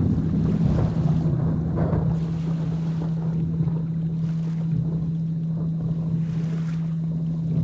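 Steady low hum of a 165 Hz binaural-beat tone over steady rain noise. A rolling rumble of thunder swells at the start and dies away over the next two seconds.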